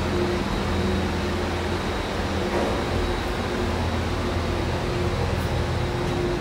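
Steady hum and whir of a Doppelmayr gondola station's machinery, heard from inside a cabin rolling slowly through the station: a constant low drone with a steady mid-pitched tone over it.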